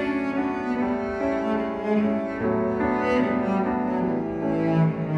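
Background instrumental music: slow, sustained bowed-string notes, changing pitch every second or so.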